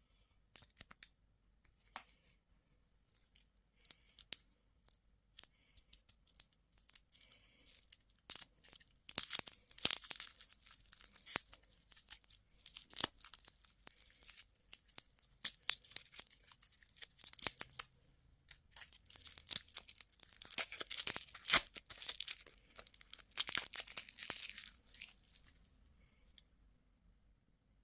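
Candy or toy packaging being torn open and crinkled: irregular crackling tears and rustles, loudest from about nine to thirteen seconds in and again around twenty to twenty-five seconds in.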